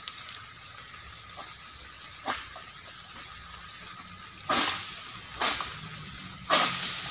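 Oil palm fronds, cut from the tree with a pole-mounted egrek sickle, swishing and crashing down through the leaves: a brief swish a couple of seconds in, then three sudden rushing crashes in the second half, the last and longest near the end.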